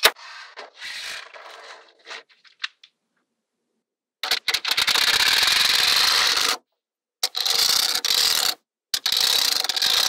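Many small magnetic balls clicking and crackling against one another as sheets of them are laid onto a stack and snap into place. It opens with a click and a light rattle; after a short silence come three long, dense stretches of loud crackling, each stopping abruptly.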